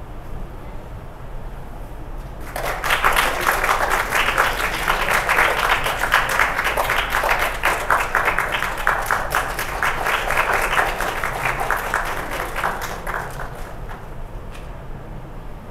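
Audience applauding: clapping breaks out about two and a half seconds in, holds, then dies away near the end, over a steady low hum.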